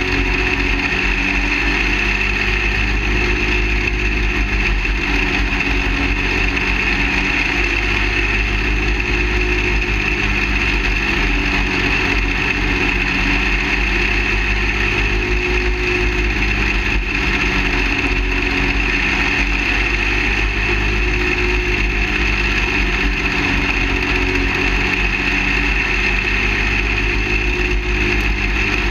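Small engine of a half-scale dirt late model race kart running hard at racing speed, its note rising and falling slightly through the corners, heard from a roof-mounted microphone with steady low wind rush.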